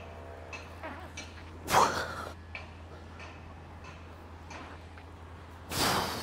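A man's heavy, forceful breaths as he strains hanging from a pull-up bar: two loud exhales, about two seconds in and near the end, with faint short ticks between them.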